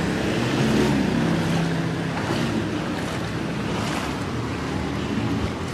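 Shallow floodwater sloshing and splashing around feet wading through a flooded street, with wind buffeting the phone's microphone. A low steady hum sits underneath for about the first two seconds.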